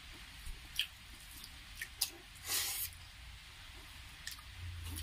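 Faint wet squishing and smacking of bare fingers mixing rice with chicken gravy, and of mouths eating it: a few short wet clicks and one longer squelch about halfway through.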